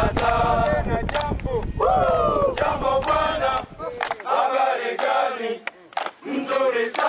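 Men's voices singing a chant together. Wind buffets the microphone during the first four seconds, then cuts off.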